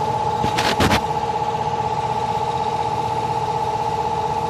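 2009 Chevrolet Tahoe V8 idling steadily with a constant whine, while it is throwing a P0300 misfire code; the misfire is traced to coolant entering cylinder number 2 and mixing with the oil. A brief rush of noise cuts in about half a second in.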